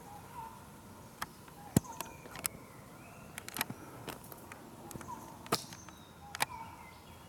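Irregular sharp clicks and knocks, a dozen or so spaced unevenly, over a low background with faint short chirps.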